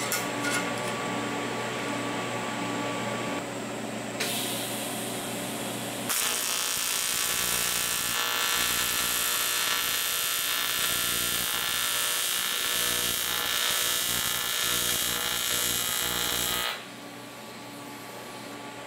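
AC TIG welding arc on 7075 aluminum plate, a butt weld run without filler rod: a steady, loud buzzing hiss that starts about six seconds in, runs about ten seconds and cuts off suddenly. A quieter steady hum lies under it before and after.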